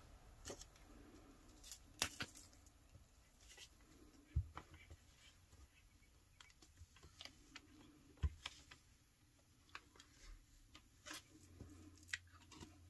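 Faint paper handling: envelopes slid and pressed on a tabletop, with scattered light taps and clicks.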